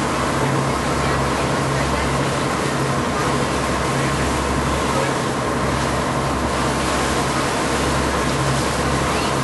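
Sightseeing cruise boat under way: a steady engine drone that swells and drops every second or so, under a constant hiss of water and wind.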